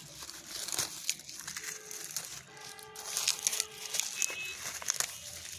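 Curly leaf lettuce being picked by hand: leaves snapping and crinkling as they are pulled off the plant, a run of short sharp crackles.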